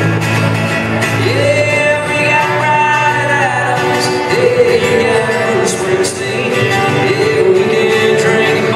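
Live country music: acoustic guitars with a man singing, his held notes sliding from one pitch to the next.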